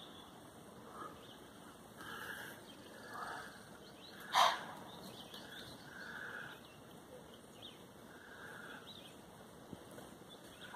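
Faint bird calls, with one loud, short animal call about four seconds in.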